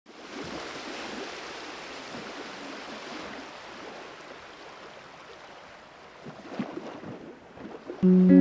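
Steady rushing of water outdoors. Music comes in near the end.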